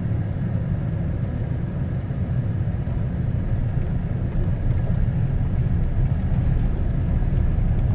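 Steady low road and engine noise of a pickup truck driving slowly along a back road, with no breaks or sudden sounds.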